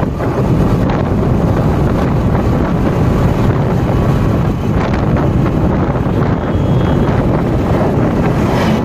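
Loud, steady wind rushing over a phone's microphone while travelling along a road in a moving vehicle, with low road rumble underneath.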